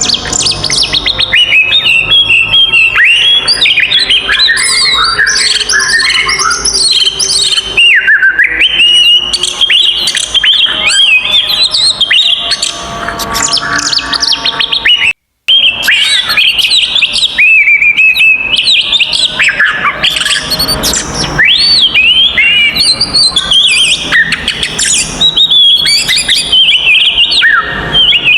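Oriental magpie-robin (kacer) singing loudly and without pause in a fast, aggressive fighting song: a dense stream of rising and falling whistles, trills and sharp chirps. It cuts out briefly about halfway through.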